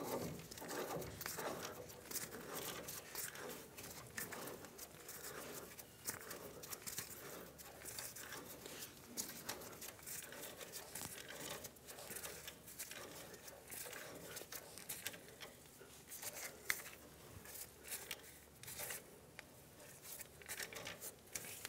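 Faint handling noise of an outer tie rod end being turned by hand onto the anti-seize-coated threads of the steering rack's inner tie rod, with scattered small clicks and scrapes.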